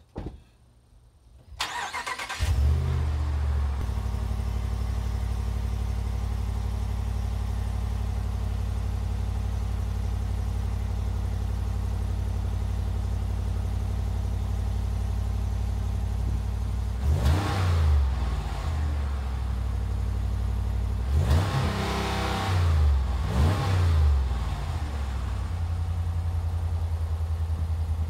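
2019–2021 Ram 1500's 5.7 L Hemi V8, heard at the tailpipes through the stock muffler and resonators. It starts about two seconds in with a brief flare, then settles to a steady, deep idle. In the second half it is blipped three times, the last two revs close together.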